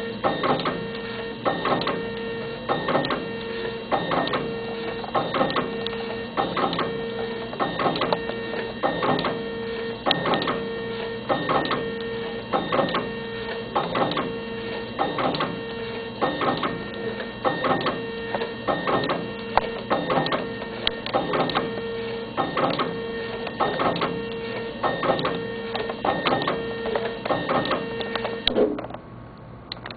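Thermal Printmaster/64 tabletop pouch printer running, feeding and printing media in a steady repeating cycle. A pulsing hum is overlaid with sharp clacks a couple of times a second, and the machine stops shortly before the end.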